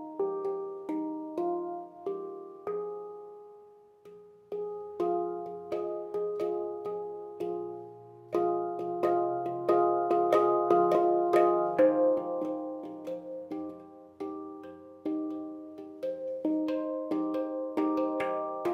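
Background instrumental music: a melody of struck notes that ring and die away after each strike, fading almost out about four seconds in before picking up again.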